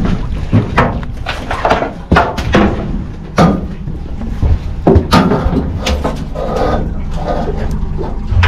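Irregular knocks and thumps as a freshly landed queen snapper is brought aboard in a landing net and set down on the boat's deck, with the net's metal frame and the fish knocking against the hull.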